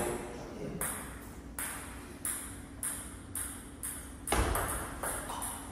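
Table tennis ball clicking off paddles and the table: single hits spaced under a second apart, then a quicker run of hits about four seconds in, as a serve starts a new rally.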